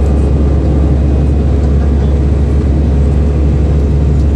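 Jet airliner cabin noise in the climb after takeoff: a steady, loud, low drone of the engines and the airflow, heard from a window seat over the wing.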